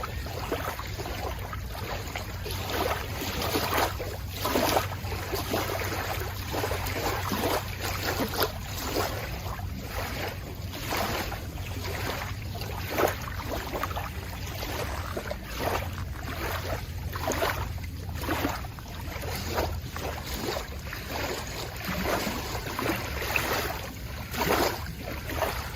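Shallow lake water splashing and sloshing in irregular bursts, as of someone wading, over a steady low wind rumble on the microphone.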